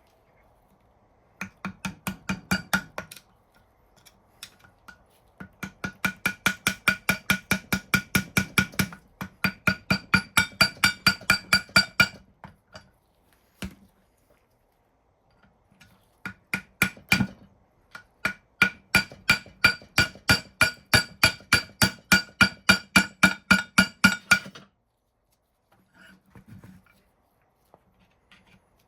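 Hammer beating rapidly on metal, about five ringing blows a second, in three long runs with a few single knocks between. The work is pounding off the layers of old paint and filler on the cast vise.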